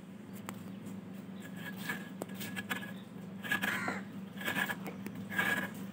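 Serrated metal coconut scraper rasping fresh coconut flesh out of the half shell in a series of short scraping strokes, more of them in the second half, over a steady low hum.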